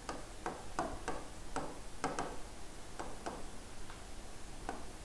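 A pen writing on a board: about ten short, irregular taps and scratches as the pen strokes out letters.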